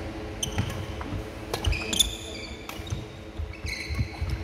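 Badminton doubles rally on a wooden indoor court: several sharp racket hits on the shuttlecock, short high squeaks of shoes on the floor, and thudding footsteps.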